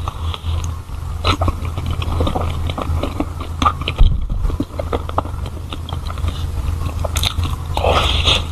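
Close-miked biting and chewing of a soft, cream-filled strawberry 'snow fatty' (xue pangzi) pastry: many small, quick mouth clicks.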